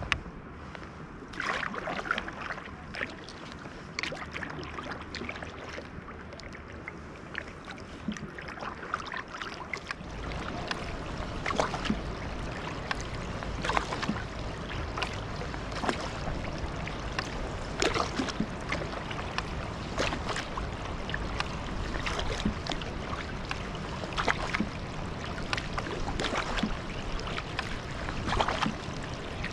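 Sea kayak paddling on calm water: a splash and a trickle of water off the paddle blade about every two seconds as the strokes go in on alternate sides. A steady low rumble sets in about a third of the way through.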